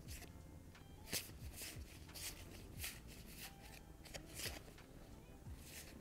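Monopoly Deal playing cards being thumbed through and slid from hand to hand, with about a dozen soft, crisp card flicks and rustles at an uneven pace.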